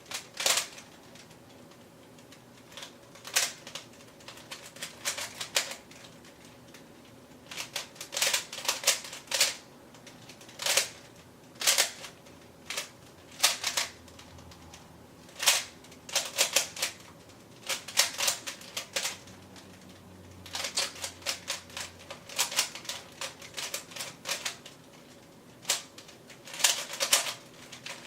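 3x3 Rubik's cube being turned fast during a timed solve: its plastic layers click in irregular bursts of quick turns, broken by short pauses, which makes for a choppy solve.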